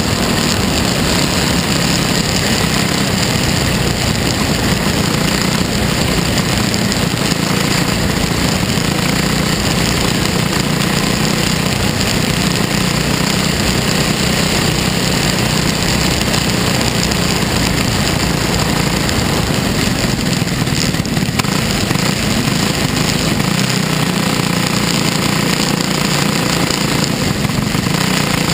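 Dirt-track race car's engine running on track, heard from inside the cockpit as a loud, steady drone without clear revving up or down.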